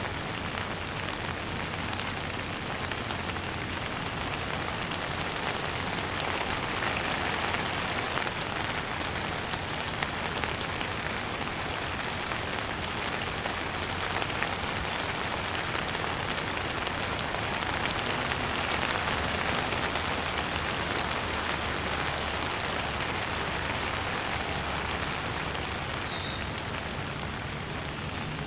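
Steady rain falling on a surface, a dense even patter of drops that swells slightly louder a couple of times.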